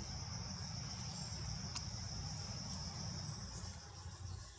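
A steady, high-pitched drone of an insect chorus over a low rumble, with a faint click about two seconds in.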